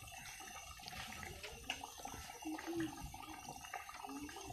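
Thin fish curry gravy boiling in a karahi, a steady scatter of small bubbles popping at the surface.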